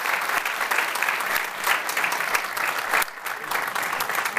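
Audience applauding: dense, continuous clapping from many hands, dipping briefly about three seconds in.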